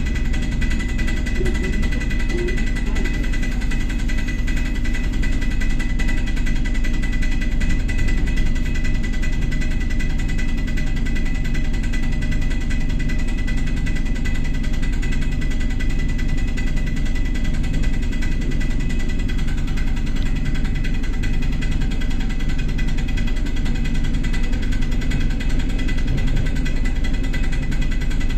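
ER2 electric multiple unit running along the line, heard from on board: a steady low rumble of the running gear with a constant high tone and several lower steady tones over it.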